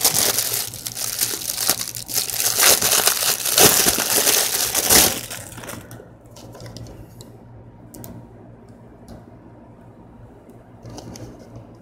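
Clear plastic shrink wrap crinkling loudly as it is pulled off a plastic water bottle. It stops about five seconds in, leaving only a few faint clicks.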